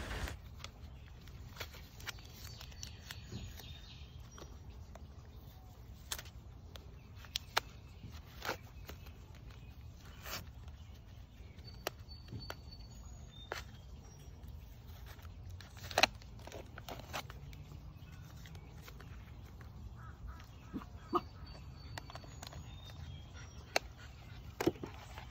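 Scattered clicks and crinkles of a plastic soda bottle and tape as the tape is peeled off and the bottle is cut open with scissors; the sharpest click comes about 16 seconds in. Faint bird chirps now and then.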